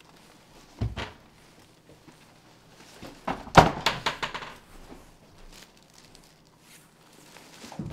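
Film gear being carried in and set down: a thump about a second in, then a louder clatter of knocks and rattles about three and a half seconds in.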